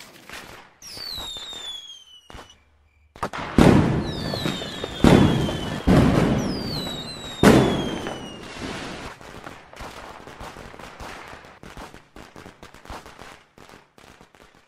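Firework rocket going off: a falling whistle, a brief pause, then four loud bangs roughly a second apart with more descending whistles between them, followed by crackling that fades away.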